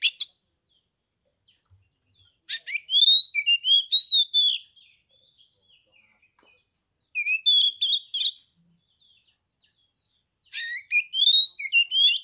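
Oriental magpie-robin singing: three phrases of varied whistled notes mixed with quick clicking and chattering notes, with gaps of a couple of seconds between phrases.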